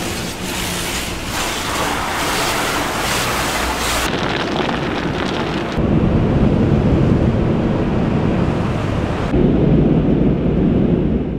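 Automatic car wash heard from inside a pickup's cab: water jets and wash equipment rushing against the windows and body, a loud steady noise that shifts suddenly in tone a few times, heavier and deeper from about six seconds in.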